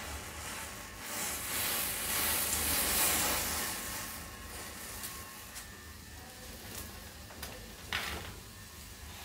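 Matchstick heads flaring one after another with a fizzing hiss that swells for a few seconds and then dies down, followed by scattered crackles and a sharper pop near the end as the flame reaches a small firecracker.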